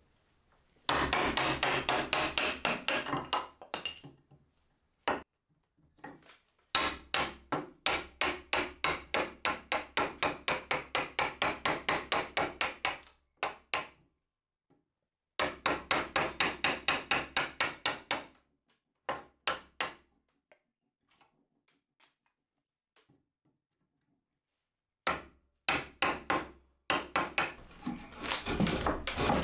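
Wood chisel being struck into a pine beam to chop out a notch between saw cuts, in runs of quick sharp taps, several a second, broken by short pauses and a few scattered lighter taps.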